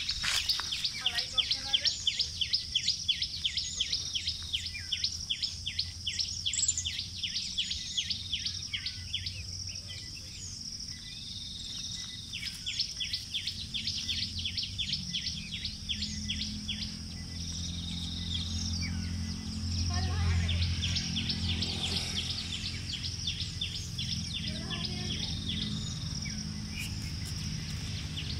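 Outdoor ambience of birds chirping rapidly over a steady high insect drone. The chirping is densest in the first third, and a low steady hum comes up in the second half.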